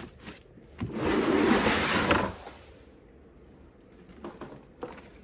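Hardside carry-on suitcase being handled: about a second in, one continuous scraping rasp lasting about a second and a half, then a few light clicks.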